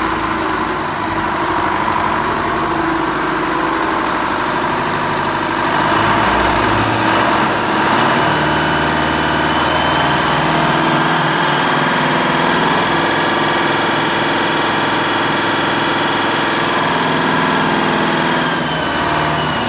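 Detroit Diesel 4-71 two-stroke four-cylinder diesel engine running steadily at about 1,000 rpm, a little louder from about six seconds in.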